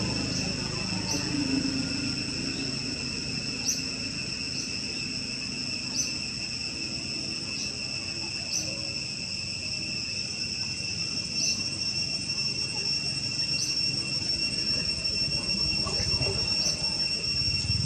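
Steady high-pitched insect chorus with short rising chirps every second or two, over a low background rumble.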